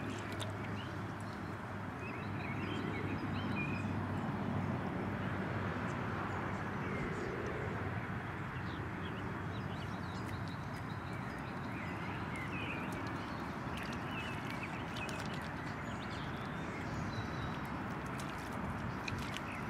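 Steady outdoor background noise with scattered short bird calls; near the end a few sharp clicks and splashes as a puppy's paws step into shallow puddle water.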